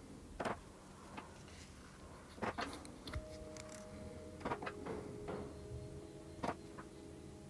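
Hammer tapping wooden dowels into glued holes in a pine board, to plug the screw heads: several light, separate knocks with irregular pauses between them.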